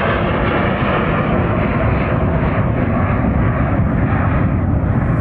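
Military jet aircraft flying past overhead, its engine noise a loud, steady roar.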